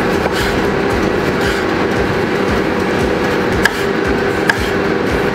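Air fryer fan running with a steady hum, while a chef's knife slicing cucumber into strips taps sharply on a wooden chopping board a few times.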